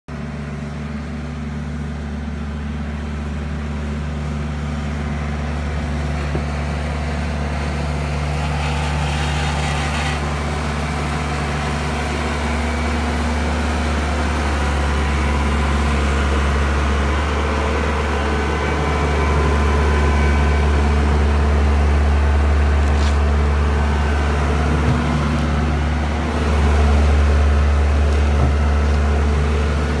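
Case 1845C skid steer's diesel engine running steadily as the machine drives closer, growing gradually louder and stepping up again near the end. A brief hiss about nine seconds in.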